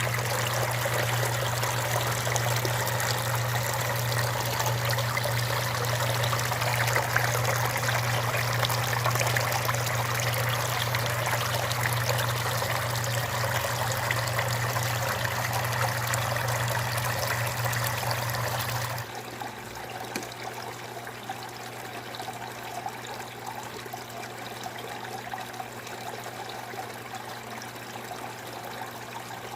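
Water from a small homemade waterfall fountain trickling and splashing steadily, with a low steady hum underneath. About two-thirds of the way in it drops suddenly to a quieter, thinner trickle.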